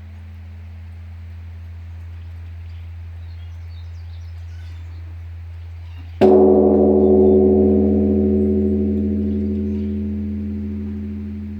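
Large Korean Buddhist temple bell struck once about six seconds in, ringing on with many tones and fading slowly. Before the strike, a low, steady hum from an earlier stroke still lingers.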